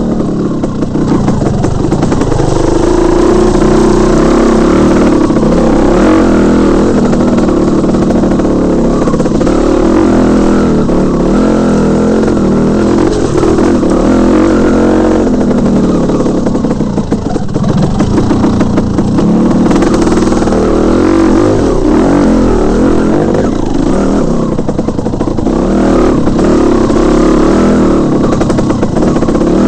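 Dirt bike engine running hard under a rider on a rough trail, its pitch rising and falling as the throttle opens and closes, with rattling from the bike over the bumps.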